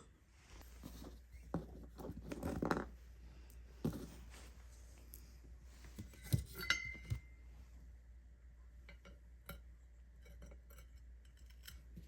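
Small metal parts and tools clinking and being handled during bike stem and handlebar assembly: scattered light clicks and knocks, with a short metallic ring about six and a half seconds in.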